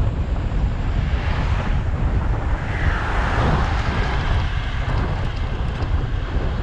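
Wind buffeting the microphone of a camera riding on a moving bicycle, a steady low rumble. A rush of noise swells and then falls away about three seconds in.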